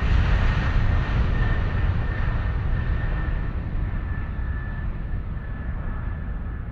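Jet airliner engine and cabin noise heard from a window seat during the climb after takeoff: a steady low rumble with a faint thin whine, slowly fading out.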